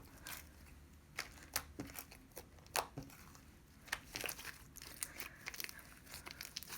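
Sticky homemade slime being kneaded and pulled by hand, giving irregular short crackling clicks as it sticks and tears away.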